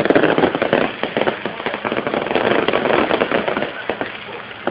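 Fireworks going off close overhead: a dense, rapid crackle of many small pops and bangs, easing slightly near the end.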